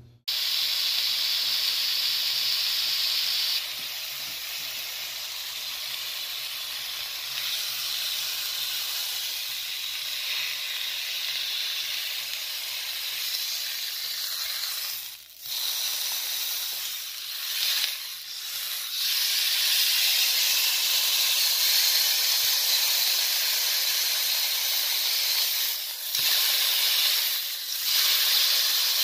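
Seasoned striploin steak sizzling in a hot nonstick frying pan: a steady, hissing fry that dips briefly twice about halfway through and grows a little louder after that.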